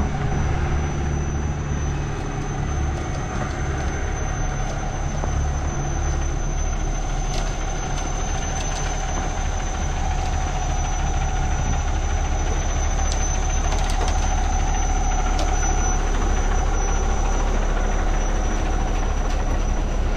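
A large engine running steadily, with a deep rumble and a thin, constant high whine above it.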